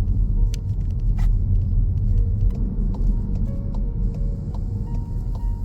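Car being driven, with a steady low road and engine rumble.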